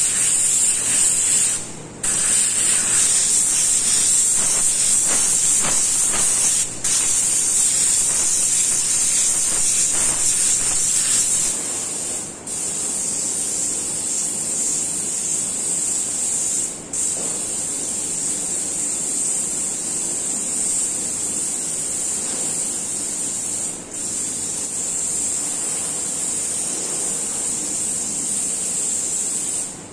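Airbrush spraying paint, a steady hiss of compressed air through the nozzle, broken by brief stops every few seconds.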